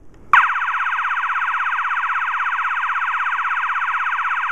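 System Sensor MA-series multitone fire alarm horn sounding a loud, rapidly pulsing high tone. This is the tone chosen with a clip on its A tab. It starts abruptly about a third of a second in.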